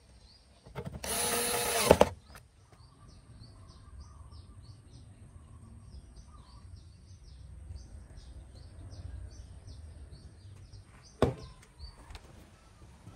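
Cordless electric screwdriver whirring for about a second, driving a screw into an amplifier's sheet-metal cover, ending with a sharp click. Small birds then chirp over and over in the background, and there is a single knock near the end.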